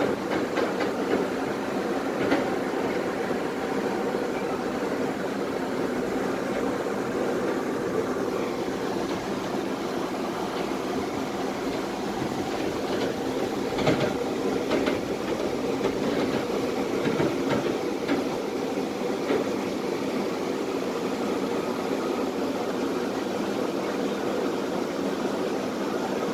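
Tatra T3SU tram running along the track, heard from inside the car: a steady rumble with a few sharp knocks of the wheels over rail joints, the loudest about 14 seconds in.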